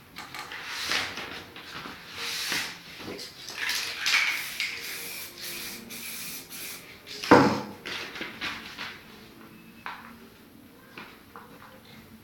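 A sheet of paper rustling and being rubbed and dragged over a spray-painted board in irregular strokes, with one sharp, louder slap or knock about seven seconds in.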